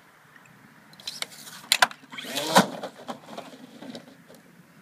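Bungee launch of a model flying wing: sharp clicks and knocks begin about a second in, followed by a short louder rush of noise, as the plane leaves the rail and ends up down on the grass instead of flying.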